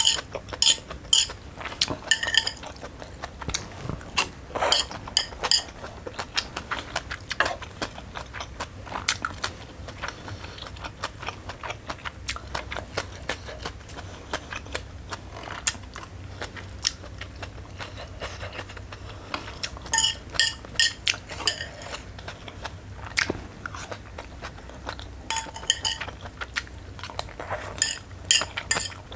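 Eating sounds: cutlery clinking and scraping against a bowl in several bursts of ringing clinks, with chewing and mouth noises in between.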